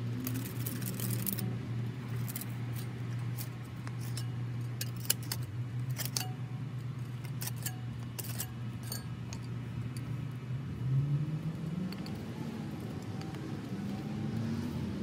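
Flathead screwdrivers scraping and clicking against concrete paver stones as they are worked into the joints to pry a paver loose, a scatter of sharp metal-on-stone ticks and scrapes. Under it runs a steady low engine hum that rises in pitch briefly about eleven seconds in.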